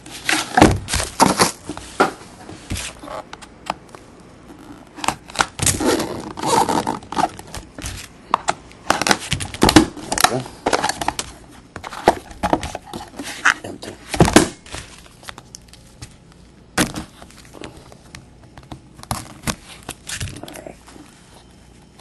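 A 2010 Panini National Treasures football hobby box being handled on a tabletop, its lid lifted and the cards inside taken out. The sound is irregular knocks, taps and scrapes, thick at first and sparser after about fifteen seconds.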